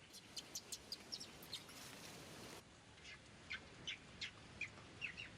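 A string of short, high chirping calls, two or three a second, over a steady background hiss.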